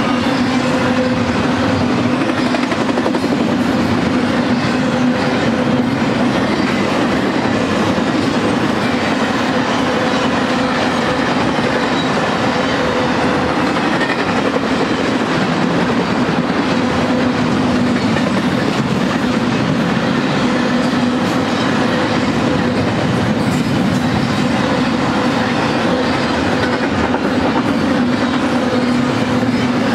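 BNSF intermodal freight train's double-stack container cars and trailer flatcars rolling past close by: a steady, loud rumble of steel wheels on the rails with a low steady tone running through it.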